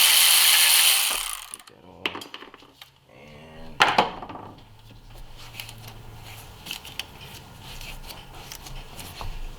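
Ratchet wrench spun quickly on a bolt, a dense run of clicks that stops about a second in; then scattered tool clicks and knocks, the loudest about four seconds in.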